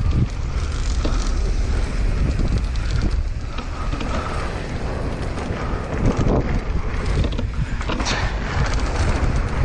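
Mountain bike being ridden down a bike park trail: wind buffeting the microphone over tyre rumble on dirt, with the bike's chain and parts rattling and clicking over bumps.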